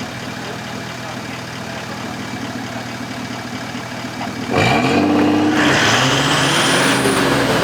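A bogged 4WD's engine idling steadily, then about four and a half seconds in it revs up sharply and holds high revs as the driver tries to drive it out, digging it in deeper.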